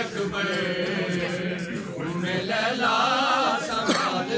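Men's voices chanting an Urdu noha lament in long, drawn-out melodic lines.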